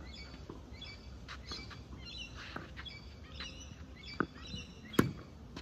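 Tennis ball struck in a rally: two sharp pocks, one a little after four seconds in and a louder one about five seconds in, with birds chirping and twittering throughout.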